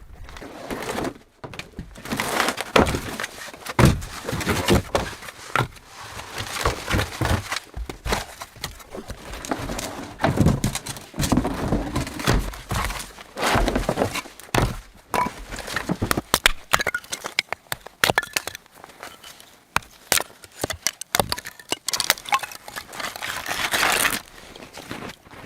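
An irregular run of wooden thunks and cracks, with crunchy stretches between them, as wood is handled and broken.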